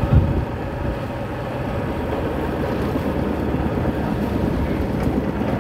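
Motorcycle engine running steadily while the bike is ridden, with a brief low thump just after the start.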